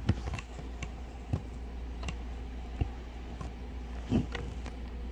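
Slime being pressed and squeezed by hand, giving off irregular small pops and clicks as trapped air escapes, about eight in a few seconds.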